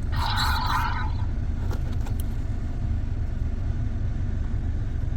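Steady low road rumble inside a car cabin. About a second long near the start, a Deadly Nadder toy plays an electronic dragon roar through its small speaker.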